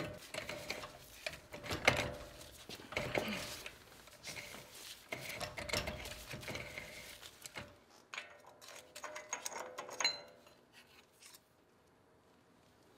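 Spindle-nut socket and wrench working the front spindle nut of a Dana 44 axle loose: irregular metallic clicks and scrapes that die away about three quarters of the way through.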